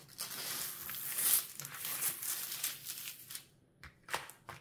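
Clear plastic protective film crinkling and being peeled back from a sticky diamond-painting canvas as hands work it, a dense rustling for about three seconds, then a few short crackles near the end.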